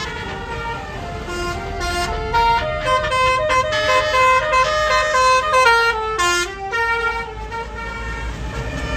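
Tour bus 'telolet' basuri multi-tone musical horn playing a tune of stepped notes, loudest in the middle, over the low running of the bus's engine.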